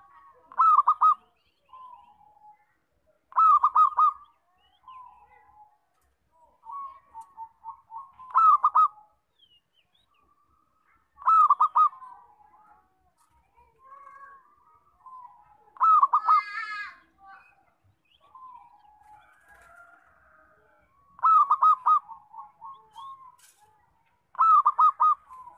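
Zebra dove (perkutut) cooing: loud, short, stuttering rolling phrases repeated about every three to five seconds, with softer coos between them.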